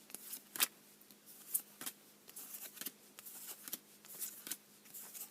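Yu-Gi-Oh trading cards being handled and flipped through, making light, irregular clicks and rustles.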